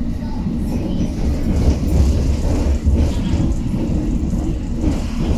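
London Underground District line train running, heard from inside the carriage: a steady low rumble of wheels on rail and running gear.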